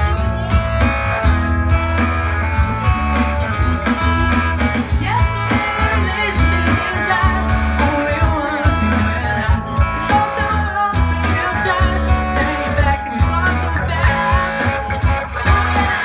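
Live band playing a pop-rock cover: guitar over drums, bass and keyboard, with a steady beat.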